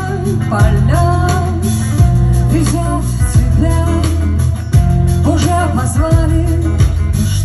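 Live band playing a song: acoustic guitar over bass guitar and drums, with a voice singing the melody.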